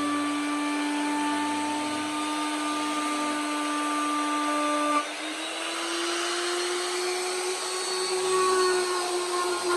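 Handheld power carving tool running steadily, its motor whine over a grinding hiss. The pitch steps up a little about halfway through, then creeps higher.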